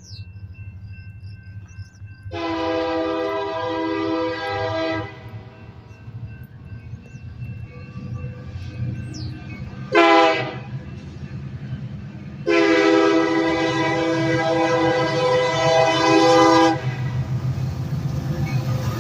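A freight locomotive's air horn sounding the grade-crossing signal: a long blast, a short blast, then a final long blast, over the steady rumble of the passing diesel train.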